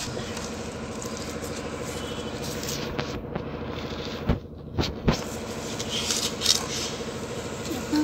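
Hand mixing damp cement and rock dust with gravel in a metal tin: gritty scraping of grit and stones against the tin, with a few sharp knocks. A steady low hum runs underneath.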